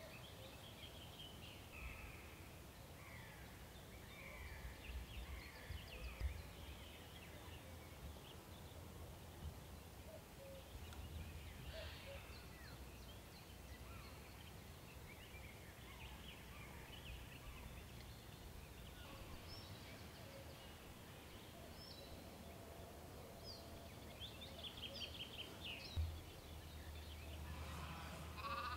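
Quiet outdoor ambience with small birds chirping and calling on and off throughout, and a couple of soft low thumps. Near the end a mouflon starts to bleat.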